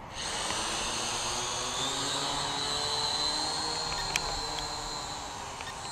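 Syma X8W quadcopter's motors and propellers whirring in flight, a steady high whine over a lower buzz, drifting slightly in pitch. A single sharp click about four seconds in.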